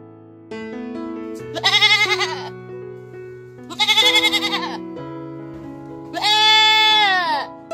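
Gentle piano background music, over which an animal bleats three times, the last call the longest and falling in pitch at its end.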